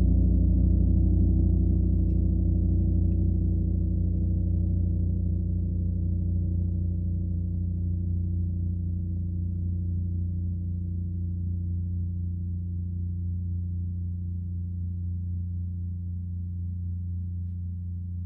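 A gong ringing out with a deep hum and many steady overtones, fading slowly and evenly.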